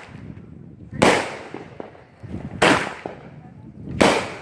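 Fireworks going off: three loud bangs about a second and a half apart, each trailing off quickly.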